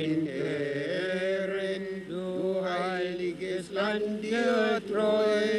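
Men's voices singing a slow, chant-like song with long held notes over a steady low note.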